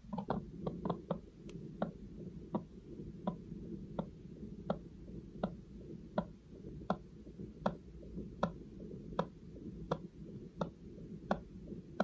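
Heartbeat picked up by a Bluetooth electronic stethoscope (Stemoscope) on the chest and played through a phone: a steady pulse of low thuds, each with a short click, about 80 beats a minute over a low rumble. A few irregular knocks come first as the chest piece is settled.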